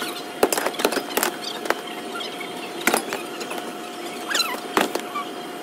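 Airport baggage carousel running: irregular clacks and knocks with short squeals, over a steady faint hum.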